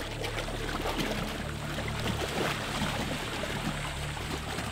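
Muddy water sloshing and splashing as African elephant bulls wade and bathe in a waterhole, over soft sustained background music.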